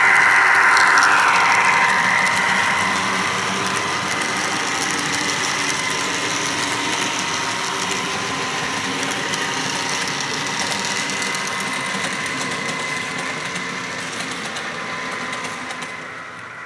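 HO scale model freight train led by a model EMD GP15-1 diesel running past. The steady mechanical running sound is loudest as the locomotive goes by in the first couple of seconds, then carries on more quietly as the freight cars roll past, easing off near the end.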